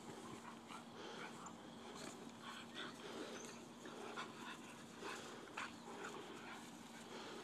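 Two dogs play-wrestling on grass, heard faintly as a run of short, irregular breathy sounds and scuffles.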